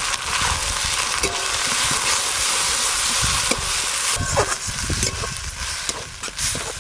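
Bottle gourd leaf paste sizzling steadily in a hot kadai as it is stirred, its water cooking off.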